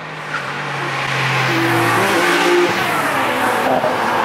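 A car driving past at speed close by, its engine getting steadily louder as it approaches, with the engine note falling about two seconds in.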